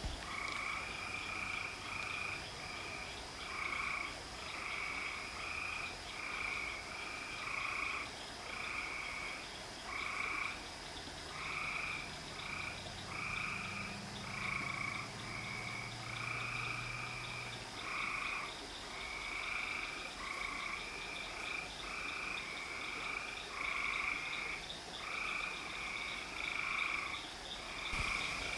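Frogs calling in a chorus, short calls repeating about once a second without a break, over a steady high-pitched tone.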